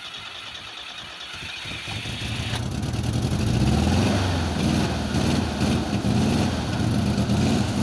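1976 Citroën GS Club's air-cooled flat-four engine coming to life on a cold restart: the sound builds up over about two seconds, then the engine runs on unevenly, its exhaust silencer holed.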